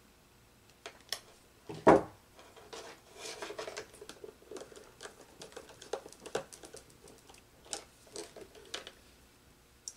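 Hands working insulated electrical wires and small plastic fittings on a control wiring board: scattered light clicks, scratches and rustles, with one sharper knock about two seconds in.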